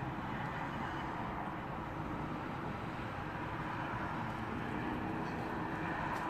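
Steady rush of distant road traffic, with no single event standing out.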